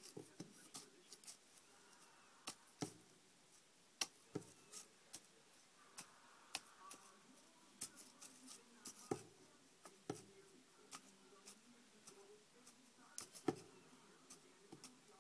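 Pet rabbit rummaging in wood-shaving bedding: faint, irregular clicks, scratches and rustles, with a few sharper knocks.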